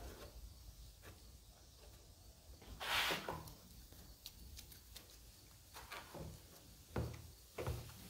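Faint scrapes of a plastic spreader working body filler across a fiberglass hood: one longer scrape about three seconds in and a few short ones near the end.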